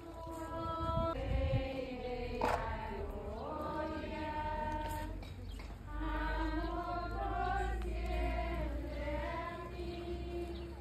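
A crowd of people singing a religious hymn together in a street procession, with held notes that slide between pitches. A low rumble runs under the singing from about six seconds in.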